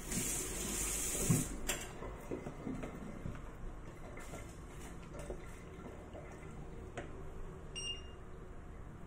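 A kitchen tap runs briefly into the steel sink for about a second and a half, with a knock just as it stops. Then come a few light knocks of a wooden spoon stirring in the pot, and near the end a short electronic beep from the hob's touch controls.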